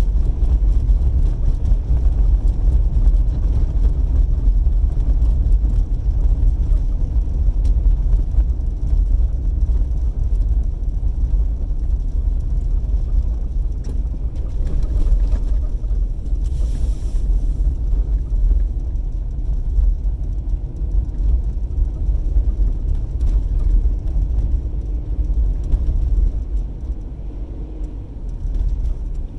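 Car driving, heard from inside the cabin: a steady low road and engine rumble, with a brief faint hiss about seventeen seconds in.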